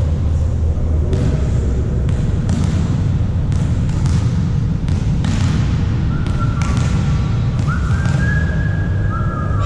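Volleyballs being struck and landing on a gym floor, sharp thumps every second or so that echo in the hall over a steady low rumble, with sneakers squeaking on the court several times in the second half.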